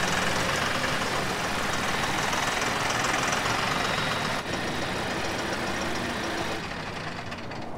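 Mahindra farm tractor's diesel engine running under load while the front-loader hydraulics work the bucket, down into the mud and then raised high, as the stuck tractor tries to free itself.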